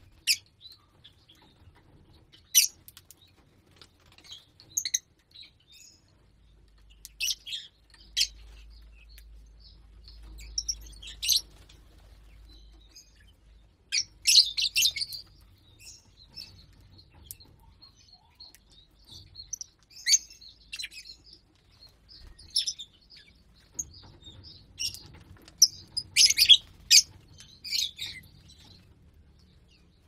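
Lovebirds chirping: short, sharp calls at irregular intervals, coming thickest about halfway through and again near the end.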